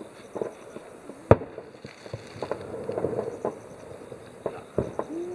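Water-launched fireworks going off: a run of irregular sharp pops and cracks, one much louder bang about a second in.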